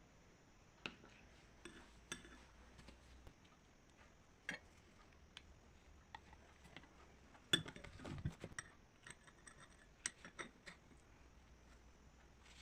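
Faint, scattered clinks and taps of kitchen utensils against dishes, with a louder knock and a short clatter about seven and a half seconds in.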